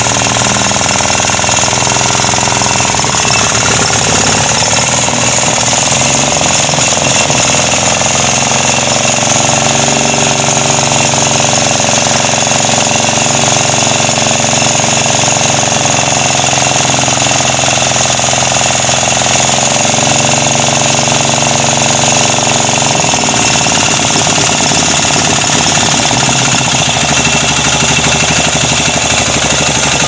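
Yamada 7 HP single-cylinder engine running steadily on its break-in run as a new engine, with its speed shifting slightly a few times.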